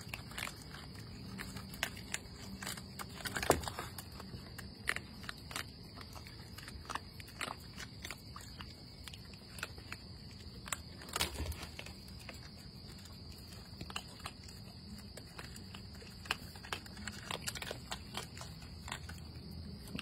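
Raccoons chewing and crunching food from a plastic feeder bowl: irregular crisp crunches and clicks, with a few louder ones about three and a half and eleven seconds in.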